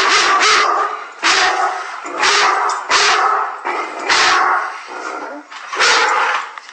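A dog barking repeatedly, about seven loud barks at uneven intervals.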